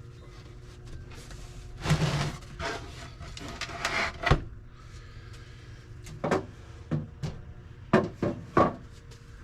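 Shop tools and wooden items being handled and moved during a search for a missing small square: scattered knocks, scrapes and clatters, with a sharp knock about four seconds in.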